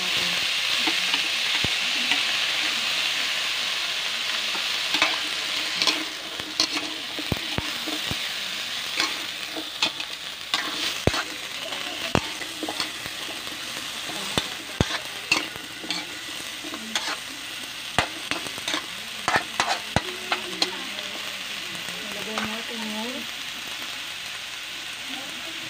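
Squash and green beans sizzling in a metal wok, loudest over the first several seconds, then stir-fried with a spatula that scrapes and clinks sharply against the pan from about five seconds in until near the end.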